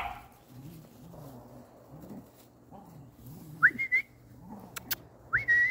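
Two whistled recall signals to puppies, each a quick upward swoop settling on a held high note, about two-thirds of the way in and again near the end, the second a little longer. A few faint clicks fall between them.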